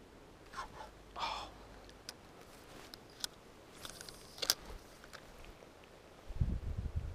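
Handling noise at a body-worn camera's microphone: a few faint scattered clicks and rustles, then low, irregular rubbing thumps starting about six seconds in.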